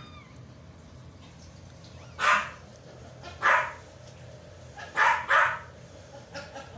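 A dog barking four times in short barks, the last two in quick succession.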